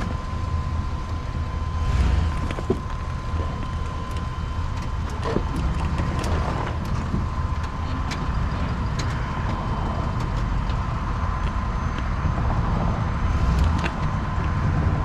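Truck engine running at low speed as the truck creeps onto an ATV tire to push the tire off its bead: a steady low rumble with a faint steady whine and a few scattered clicks and creaks.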